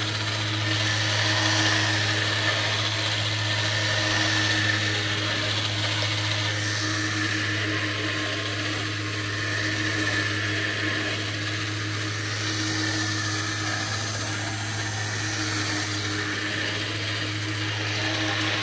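Badland electric winch running steadily, its motor and gear train whining as it reels in cable under load while dragging an old Allis-Chalmers tractor.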